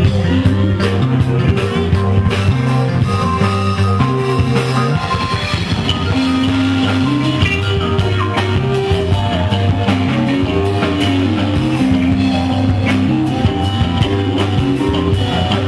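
Live rock band playing an instrumental passage: electric guitar over a drum kit.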